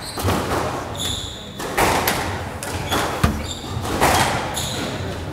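Squash rally: the ball cracking off racquets and the court walls in sharp irregular strikes, with court shoes squeaking on the hardwood floor about a second in and again near the end.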